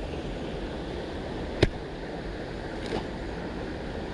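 Steady rush of a river's flowing water, with one sharp click about a second and a half in and a softer one near the end.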